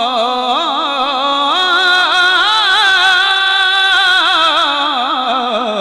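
A man's voice singing one long drawn-out note with heavy vibrato, stepping up in pitch about one and a half seconds in and falling away near the end: a melismatic line in a Punjabi Sufi verse recitation.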